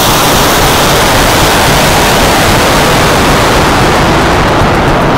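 A model rocket launching and climbing, heard through a small 808 keychain camera mounted on its body. The motor's thrust and the air rushing past the camera make a loud, steady rushing noise.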